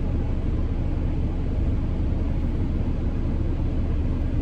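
Steady low rumble with an even hiss above it, unchanging throughout.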